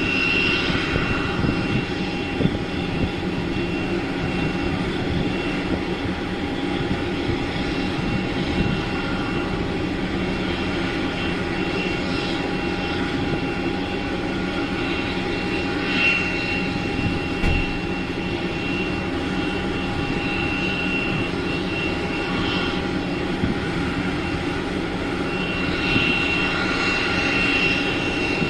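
Steady jet-engine noise: a continuous rumbling roar with a high whine and a lower tone held over it, swelling slightly a few times.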